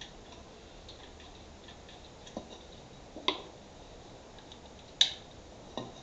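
A hot glue gun being handled and reloaded with a glue stick over a glass bowl: four short, sharp clicks and knocks, the loudest about five seconds in.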